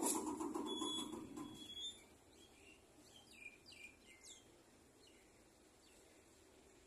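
A low, noisy sound lasting about two seconds, then a few quick bird chirps around the middle, over faint background hiss.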